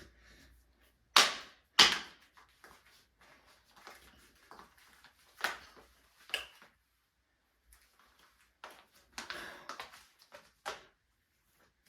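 Shoes being handled and put on: a few sharp knocks and clacks with soft rustling between, the two loudest knocks close together near the start and a cluster of smaller clicks near the end.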